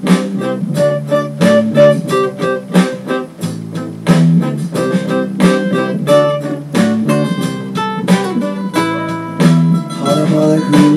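Background music played on guitar, with plucked notes and strummed chords.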